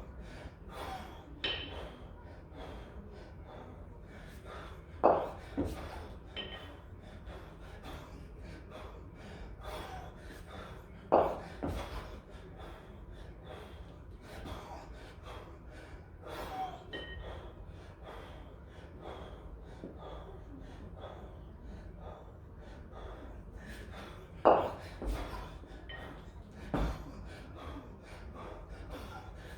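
A kettlebell lifter breathing hard under the effort of a long-cycle set with two 24 kg kettlebells, with a few sharp, loud gasping breaths standing out above a steady low background.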